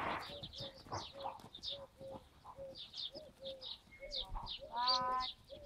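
Birds calling: a short low note repeats about three times a second amid high chirps. A longer pitched animal call comes about five seconds in.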